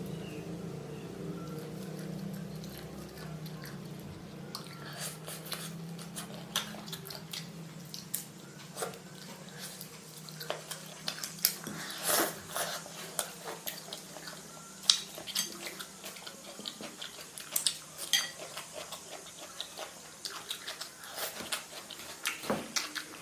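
Eating sounds: utensils clicking and clinking against a dish in many short, irregular taps, with chewing. A low steady hum fades out in the first few seconds.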